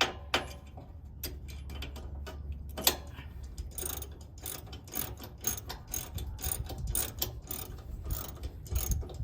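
Socket ratchet wrench with a 1/2 inch socket clicking in quick, uneven strokes as a bolt and locking nut are tightened.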